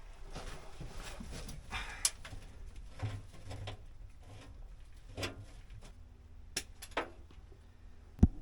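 Handling noises from hand work on electrical wiring: scattered light clicks and knocks, with one sharp knock near the end.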